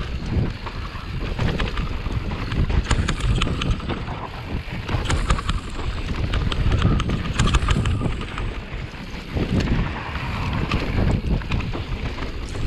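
Mondraker Level R electric mountain bike descending a dirt singletrack: tyres rumbling over the trail, with frequent rattles and clicks from the bike over bumps, under steady wind noise on the action-camera microphone.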